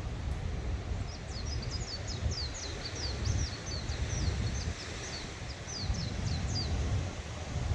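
A songbird singing a long run of quick, high, descending chirps, about three or four a second, starting about a second in and stopping near the end, over a steady low rumble.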